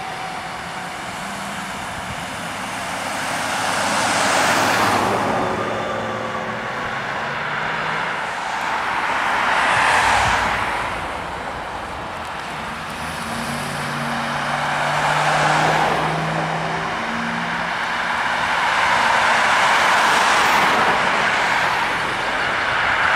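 Road traffic passing close by: vehicles go by one after another, each rising and falling in a swell of tyre and engine noise, four times in all. Near the middle, a deeper engine hum comes up as the ambulance drives past.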